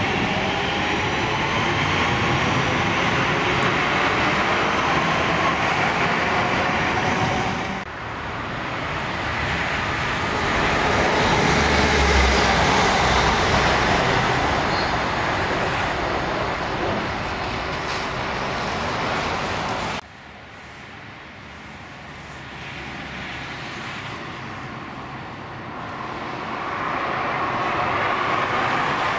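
Trains at a station in three cut-together takes. First, a diesel multiple unit pulls away, its engine note rising in pitch. Then a louder stretch of train rumble and rail noise peaks and fades, and finally a train approaches, growing louder near the end.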